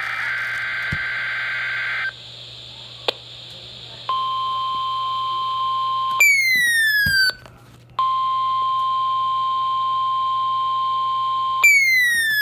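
About two seconds of Emergency Alert System digital data tones: the harsh warbling buzz that switches between two pitches. After a short pause comes the NOAA Weather Radio warning alarm, a steady single tone, which twice cuts to a falling electronic sweep.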